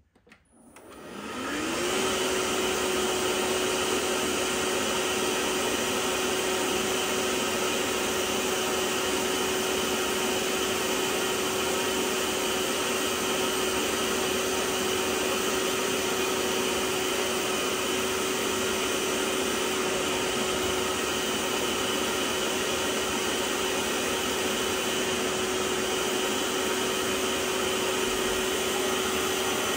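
Vax OnePWR cordless carpet cleaner switched on: its suction motor spins up with a rising whine over the first couple of seconds, then runs steadily over a broad hiss of air.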